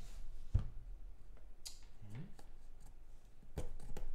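A black hard-shell briefcase card box being handled and turned on a table, giving a few scattered clicks and knocks from its frame and latches: a dull knock about half a second in, a sharper click a little later, and two more clicks near the end.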